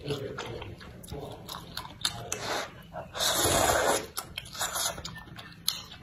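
A person slurping noodles in broth, several breathy slurps between chewing, the longest lasting most of a second a little after three seconds in.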